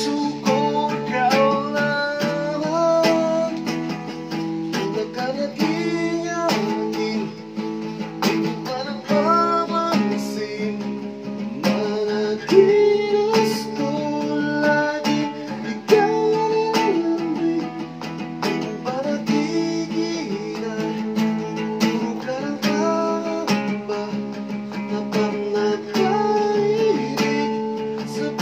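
Acoustic guitar strummed in steady chords, accompanying a singing voice.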